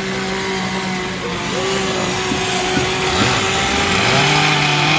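Several chainsaws running at once while carving wood, their engine notes held steady and shifting slightly in pitch, with a lower-pitched saw joining about four seconds in.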